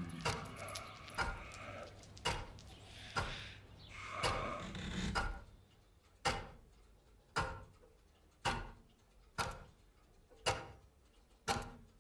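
Clock ticking steadily, about one tick a second. For the first five seconds a softer wash of other sound lies under the ticks, swelling just before it stops; after that the ticks are heard alone.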